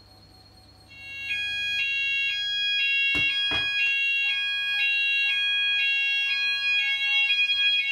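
Addressable fire alarm system going into full evacuate alarm about a second in, set off by a hair dryer heating a multi-sensor detector. Its sounders sound together: a steady tone under a pattern of higher tones alternating about twice a second. Two sharp knocks come around the middle.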